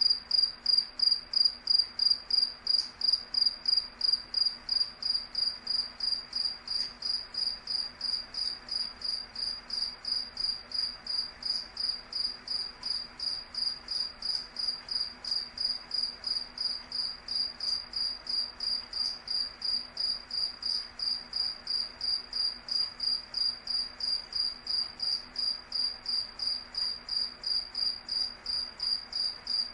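A cricket chirping steadily, high-pitched, about three even chirps a second without pause.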